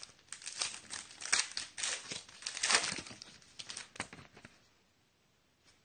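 Foil trading-card pack wrapper being torn open and crinkled by hand: a quick run of sharp crackling rustles lasting about four seconds, then it goes quiet.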